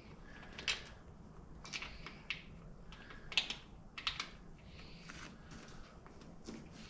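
Scattered light clicks and taps, about eight in seven seconds, as a Harley-Davidson Road Glide seat is pressed and worked into its mount to lock it in.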